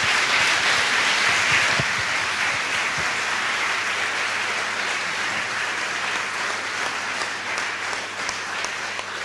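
Audience applauding steadily, the clapping slowly dying down toward the end.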